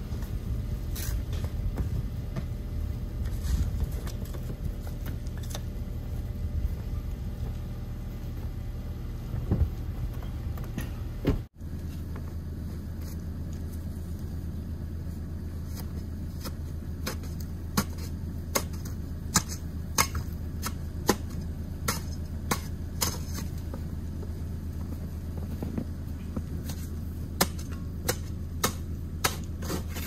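Snow shovel digging at a stuck car's rear tyre: sharp scrapes and knocks, roughly one a second, through the second half, over a steady low rumble.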